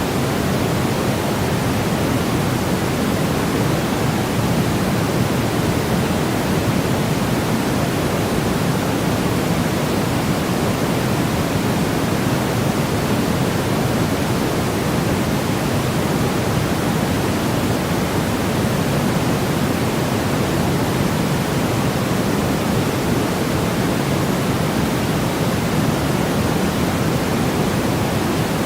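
Steady white-noise track: an even, unchanging hiss, strongest in the low and middle range and thinner toward the top.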